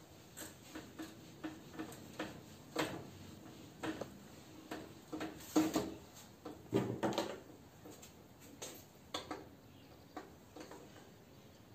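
Whiteboard marker and movement at the board: irregular short taps, clicks and thin squeaks, a few a second, with a louder cluster around the middle.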